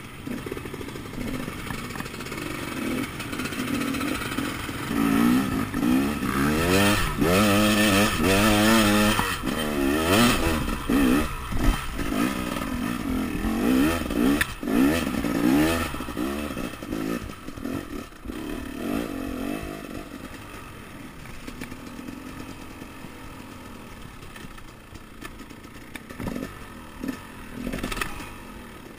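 Enduro dirt bike engine heard close up from the handlebars, revving up and down again and again as the bike rides a rough forest trail, with knocks and rattles from the bike over the ground. It is loudest in the first half, then settles into a quieter, steadier run.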